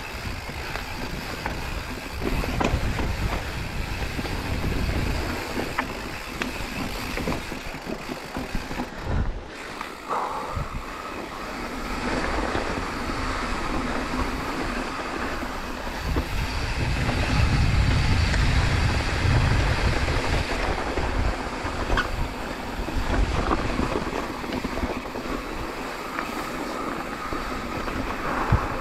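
Mountain bike riding a rough trail, heard from a camera on the bike or rider: a steady rush of wind on the microphone and tyres on dirt and rock, with the bike rattling and scattered sharp knocks.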